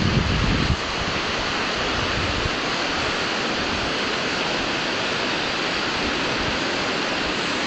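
Shallow river running steadily over rocks, a continuous even rush of water. A low rumble of wind on the microphone drops away under a second in.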